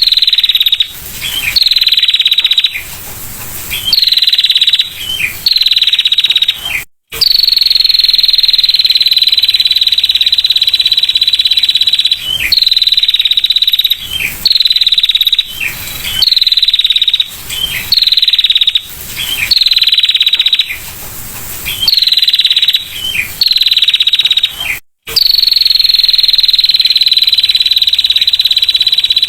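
Female prinia (prenjak) giving its 'ngetir' call: fast, high trills held near one pitch, some in short bursts and some in runs of several seconds, repeated over and over. The sound cuts out briefly twice.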